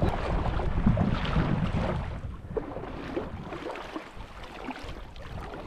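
Wind rumbling on the microphone, with small waves lapping. The wind is strongest in the first two seconds and then eases.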